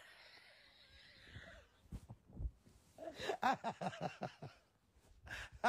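A woman laughing: first a breathy, wheezing laugh with no voice for about two seconds, then a few low thumps, then voiced laughter about three seconds in, with a word or two near the end.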